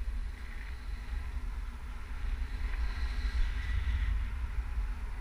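Wind buffeting an action camera's microphone in flight under a tandem paraglider: a steady, fluttering low rumble.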